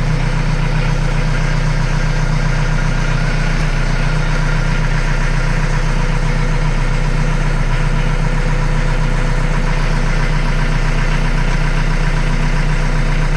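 Yanmar YT-series tractor's diesel engine idling steadily.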